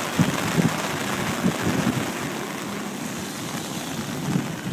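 Car driving through deep floodwater: a steady rush of water spraying around the vehicle, with several low surges of water sloshing against it.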